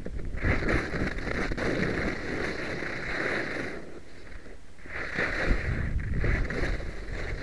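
Skis scraping across hard-packed snow through two long turns, the hiss easing briefly about four seconds in between them, over wind buffeting the microphone.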